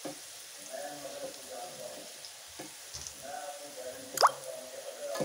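Bitter gourd slices sizzling in oil in a nonstick frying pan while a silicone spatula scrapes and lifts them out, with scattered small ticks and one sharp knock about four seconds in.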